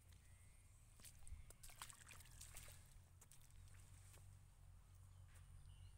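Near silence outdoors: a faint low rumble with scattered faint rustles and clicks.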